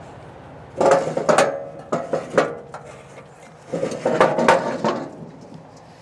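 The heavy-gauge steel discharge chute of a Woodland Mills WC68 PTO wood chipper being swung around on its swivel mount. It gives two bouts of metal clanking and knocking with a ringing tone under them.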